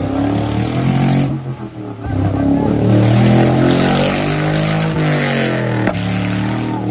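A 4x4 SUV's engine revving hard under load, its pitch climbing and then falling away, with a rushing hiss from the wheels churning through wet mud.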